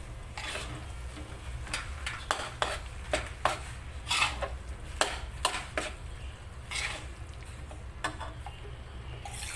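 Metal spatula scraping and knocking against a metal wok, about a dozen irregular strokes, as fried chicken pieces are tossed and turned through thick rendang spice paste.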